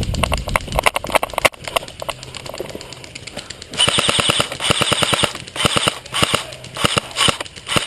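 Airsoft guns firing, with scattered single shots at first, then rapid full-auto bursts from about four seconds in.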